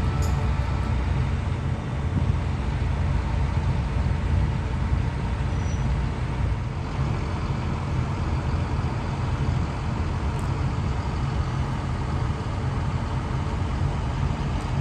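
Heavy harvest-machine engine running steadily, a continuous low rumble.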